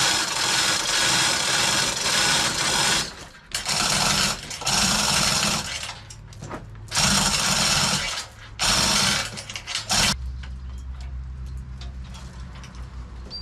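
Chain hoist lifting a heavy log in repeated start-stop bursts of chain rattle, about six pulls in the first ten seconds. A low steady hum carries on after the last pull.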